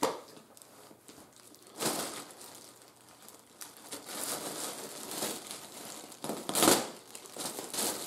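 Clear plastic garment bag crinkling and rustling in irregular bursts as it is handled and cut open, the loudest rustle about two-thirds of the way through.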